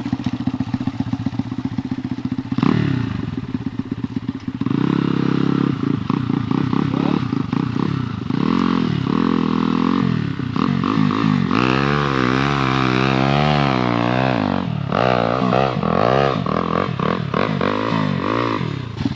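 MRF pit bike's single-cylinder engine pulling away over sand. The engine note rises and falls again and again as the throttle is opened and closed.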